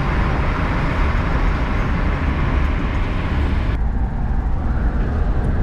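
Wind and road noise inside a car driving at highway speed: a steady low rumble with a hiss over it. The hiss drops away abruptly about four seconds in, leaving mostly the rumble.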